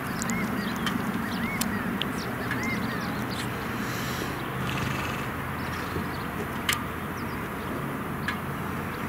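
Birds calling outdoors: short, repeated arched chirps and thin high calls, mostly in the first few seconds, over a steady low background rumble, with a single sharp click about two-thirds of the way through.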